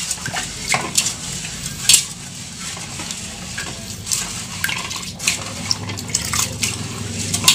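Rice being stirred by hand in rinse water in a pot: irregular swishing with scattered clicks of grains and fingers against the pot, over a steady low hum.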